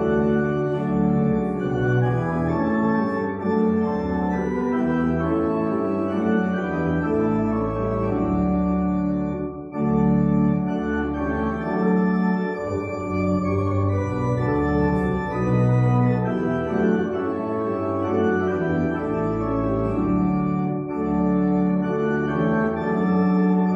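Organ playing slow, held chords that change every second or so, with a short break between phrases about ten seconds in.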